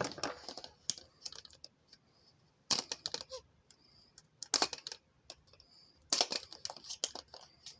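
Hard plastic dinosaur surprise egg being worked open by hand: sharp plastic clicks and snaps in three short clusters with pauses between, as the pieces resist opening.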